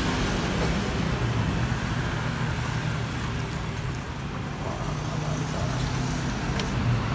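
Steady rumble of passing road traffic, with a low engine hum.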